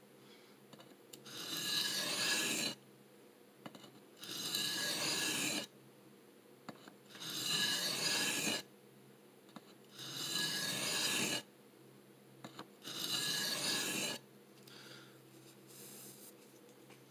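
CPM M4 steel knife blade drawn across a DMT diamond sharpening plate in five slow scraping passes about three seconds apart, then a couple of fainter, shorter strokes near the end. These are the last passes of a freehand reprofile, raising a burr along the second side of the edge.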